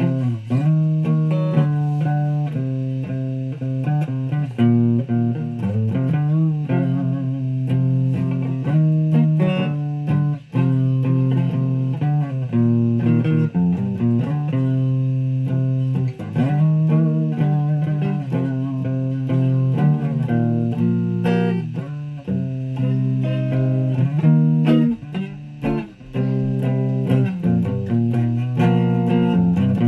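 Guitar being played: a run of plucked notes that changes pitch every fraction of a second, many of them sliding or bending up and down.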